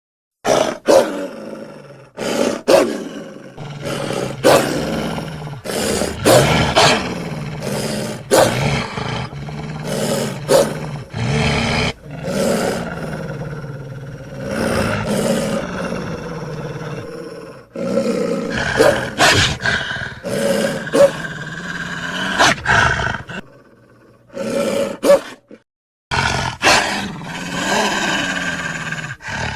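Eurasian wolf growling and snarling in a long run of harsh bursts with sharp onsets, breaking off briefly twice near the end.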